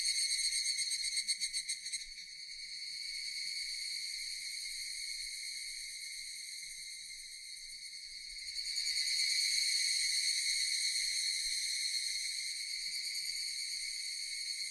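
Japanese cicadas singing in a steady, high-pitched buzz. It pulses rapidly for the first two seconds, drops in level, then swells back up about eight and a half seconds in.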